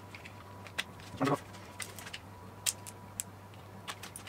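Small screwdriver prying plastic clips on a wiring harness loom cover: scattered light clicks and taps, with one louder plastic snap about a second in.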